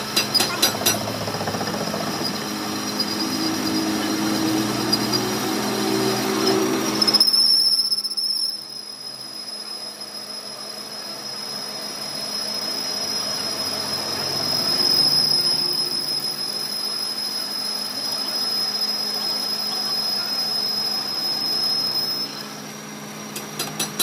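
Metal lathe turning down a steel camshaft, the tool bit cutting with a steady high-pitched squeal over the machine's hum. A rapid ticking comes in the first second. About a third of the way in, the heavier cutting noise drops away while the squeal carries on until near the end.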